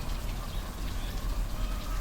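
Waterfall: falling water as a steady rushing noise with a heavy low rumble.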